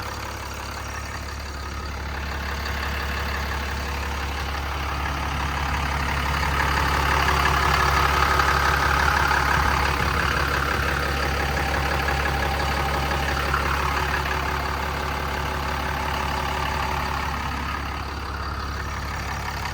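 Cummins inline-six turbo-diesel engine of a Ram 5500 running steadily with a low hum, growing louder about six seconds in and easing back down a few seconds later.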